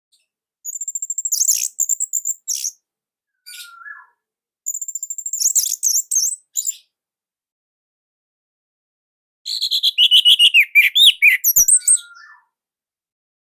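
Orange-headed thrush singing: three phrases of rapid, high-pitched chattering notes with short pauses between, a brief lower whistle after the first and last. The last phrase is longer and more varied, dropping lower in pitch.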